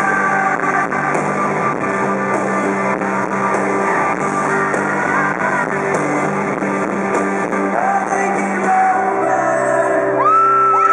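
Live pop-rock band playing in a large hall, recorded from the crowd: drums, electric guitar and a male lead vocal. Near the end, high screams from the crowd rise over the music.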